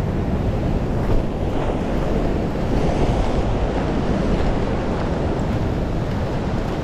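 Ocean swell breaking and washing over a rock shelf, a steady rush of surf with wind buffeting the microphone.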